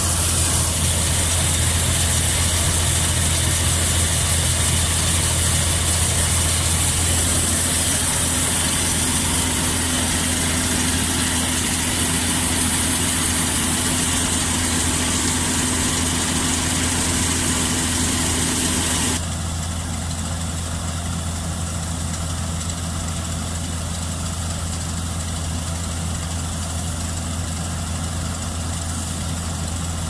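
Old combine harvester running steadily in place as it unloads threshed rice from its spout, a constant low engine hum under a high hiss. About two-thirds of the way through, the hiss and the overall level drop suddenly while the engine hum carries on.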